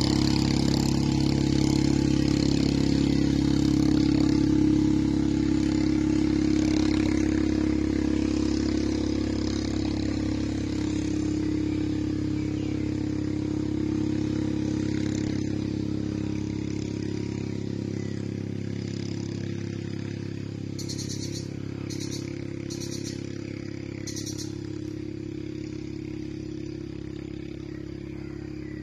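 A motor engine running steadily, slowly fading. A few short, high-pitched sounds come about two-thirds of the way through.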